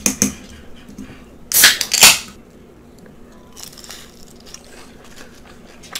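Two loud, crisp crunches close to the mic, about a second and a half and two seconds in, as a breaded zucchini fry is bitten, then quiet chewing.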